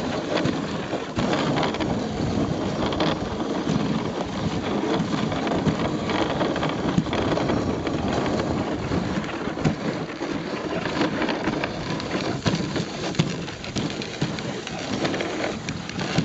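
Dog sled runners scraping and crunching steadily over a packed snow trail, with many small knocks and rattles from the sled.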